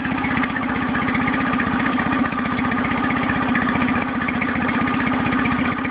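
Nissan 9.8 hp outboard motor idling at its out-of-the-box idle setting with the choke off, a steady rapid beat of firing strokes at constant speed. The idle is rough and the motor is shaking badly; the owner puts it down to the motor not yet being broken in, or to something needing adjustment.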